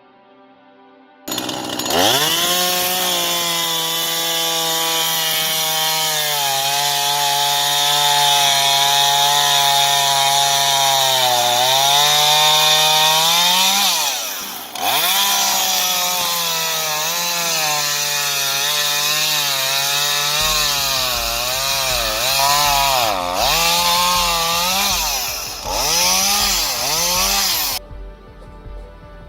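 Husqvarna 130 two-stroke chainsaw engine running at high speed, coming in suddenly about a second in with a quick rise in pitch and holding steady, then being revved up and down repeatedly, with short throttle blips in the second half, before it stops near the end.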